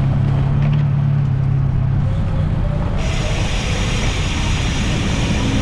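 Road traffic noise with wind rumble on the microphone. A vehicle engine hums steadily for the first couple of seconds, and a brighter hiss comes in abruptly about three seconds in.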